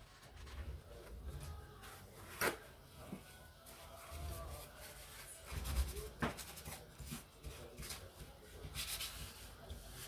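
Tissue rubbing over a laptop's copper heat-pipe heatsink, wiping off the old thermal paste, with two sharp clicks about two and a half and six seconds in.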